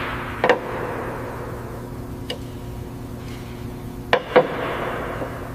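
Factory machinery humming steadily, with a hiss that fades early and swells again near the end. A few sharp metallic clanks ring out: one loud clank about half a second in, a faint one near two seconds, and two loud ones in quick succession just after four seconds.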